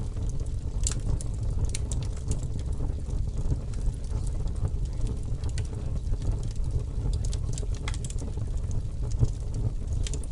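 Steady low rumbling noise with scattered light ticks and crackles over it, the background sound bed of a subliminal audio track.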